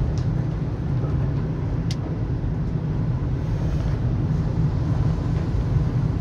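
Steady low rumble of a vehicle being driven: engine and road noise, unbroken and even in level.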